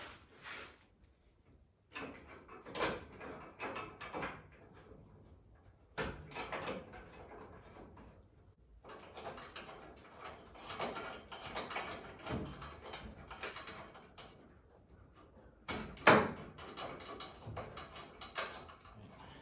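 Metal clunks, scrapes and rattles of a car's rear bumper being handled and fitted into place, coming in irregular bursts, with one sharp knock near the end.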